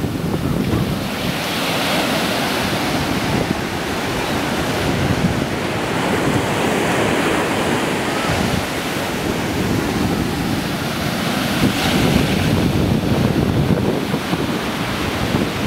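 Ocean surf breaking and washing up a sandy beach: a steady rushing that swells now and then, with wind buffeting the microphone.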